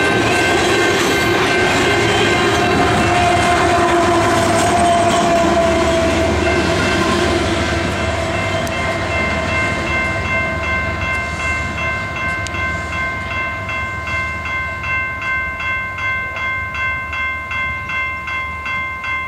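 Freight train tank cars rolling past on the rails, their wheel noise fading from about eight seconds in. Throughout, a grade crossing bell rings steadily at about two strokes a second, plain once the train noise dies down.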